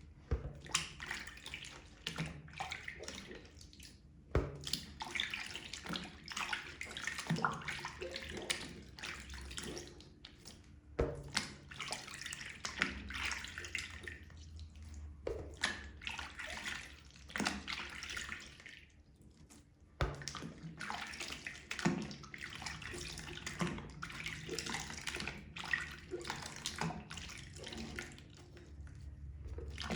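Wet makeup sponges being squeezed and rinsed in soapy water: irregular squishing and splashing, with brief lulls about four, eleven and nineteen seconds in.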